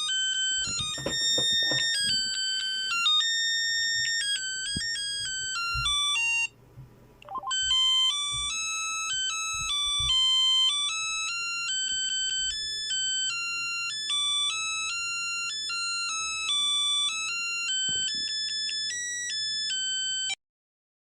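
A smartphone ringtone: an electronic melody of clean, beep-like notes played in quick succession, with a brief break and a short rising swoop about seven seconds in, then cutting off shortly before the end.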